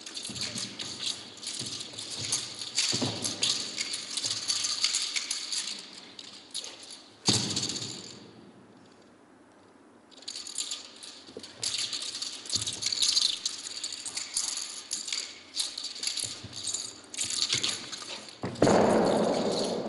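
Wushu spear rattling in rapid flurries with the rustle of a silk uniform as the spear is whirled and thrust, with a short near-quiet pause about eight seconds in. Two loud thuds of feet landing on the carpet come about seven seconds in and near the end, the last after a jump.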